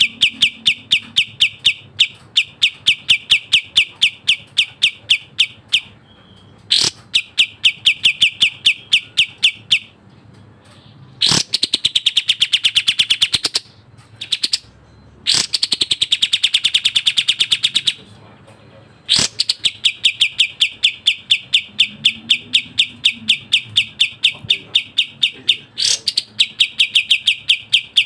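Kapas tembak songbird singing rapid, evenly spaced strings of sharp chirps, several a second, in long runs with short breaks. Through the middle the song turns to fuller calls that rise and fall.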